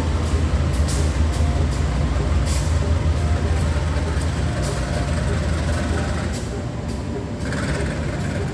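A train locomotive running close by: a steady low engine rumble with scattered sharp clicks, easing slightly about six seconds in.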